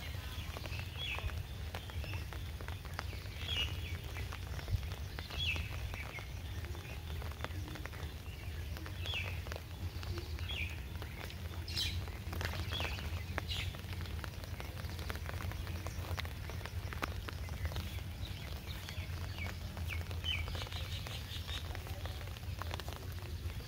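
Small birds chirping in short calls every second or two, over a steady low rumble.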